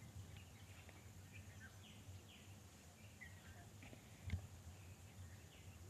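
Near silence: faint outdoor background with a few faint, short bird chirps, and one soft thump about four seconds in.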